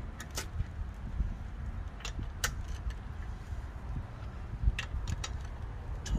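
Long-handled socket wrench turning wheel bolts into an alloy wheel: scattered metallic clicks and clinks, often in pairs and bunched about five seconds in, over a steady low rumble.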